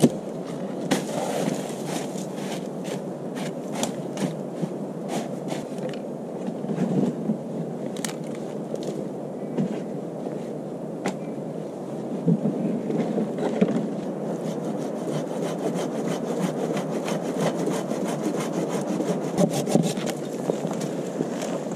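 Wooden knocks and rubbing as split firewood logs are handled and stacked. In the last few seconds this gives way to a hand saw cutting a pine branch in quick, even strokes.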